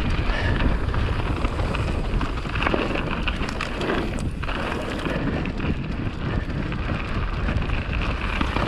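Commencal mountain bike riding down a dirt singletrack: wind buffeting the microphone over a steady rumble of tyres on dirt, with frequent knocks and rattles from the bike over the bumps.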